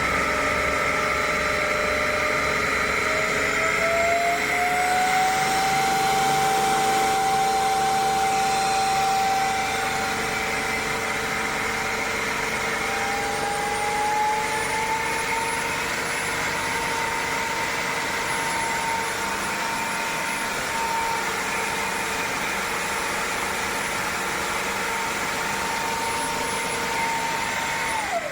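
Bissell CrossWave cordless wet-dry vacuum running with a steady high motor whine. Its pitch rises twice along the way, and near the end it is switched off and winds down.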